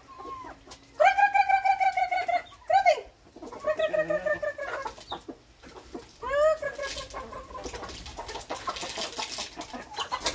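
Chickens calling: a few drawn-out, wavering squawks, the longest about a second in, then shorter calls, with a softer noisy rustle in the last few seconds.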